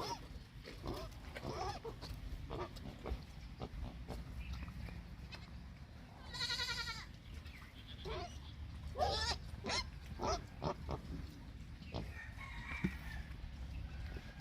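Pigs grunting and squealing in short, scattered calls, with one longer wavering squeal about six and a half seconds in.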